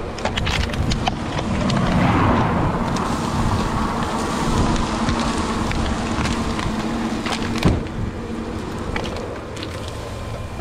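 383 stroker small-block Chevy V8 engine running with a steady note, with scattered clicks and knocks over it and one sharper click near the end.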